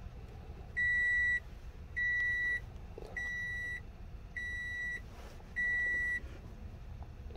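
Five electronic beeps, each about half a second long at one steady high pitch, evenly spaced a little over a second apart.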